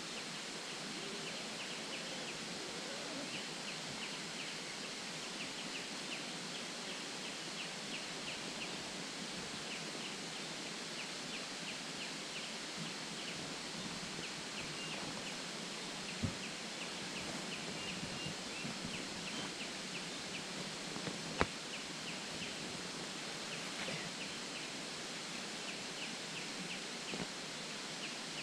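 Evening forest ambience: insects chirping in short rapid pulses over a steady hiss. Two sharp clicks come a few seconds apart about halfway through.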